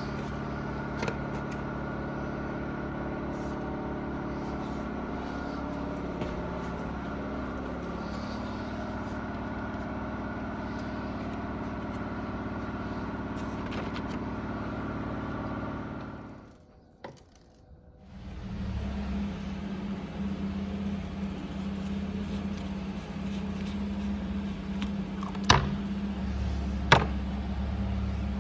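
Yamaha MT-125's single-cylinder four-stroke engine running steadily at idle. It nearly cuts out about two-thirds of the way through, then runs steadily again, with two sharp clicks near the end.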